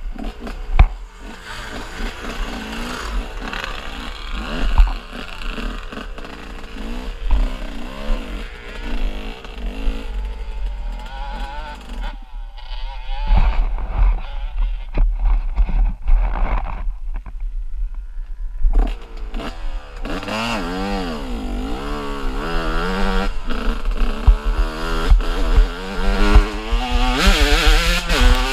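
Dirt bike engine, heard from the riding motorcycle, revving up and down with the throttle over rough ground, with knocks and clatter from the track. From about twelve seconds in it drops to low throttle for several seconds, then picks up again with quick, repeated revs near the end.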